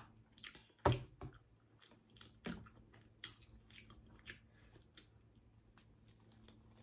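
Close-up mouth sounds of someone eating seafood boil: soft chewing and biting with scattered wet clicks and smacks, the loudest about a second in.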